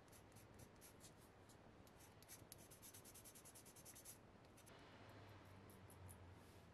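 Faint rasping strokes of 400-grit sandpaper rubbed back and forth on a small plastic model-kit part. The strokes quicken in the middle, then give way to a softer, steadier rub near the end.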